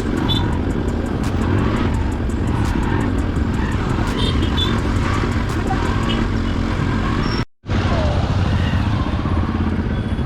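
Motorcycle riding in city traffic: the engine running, with road and wind noise on the microphone. The sound drops out for a moment about seven and a half seconds in, then carries on.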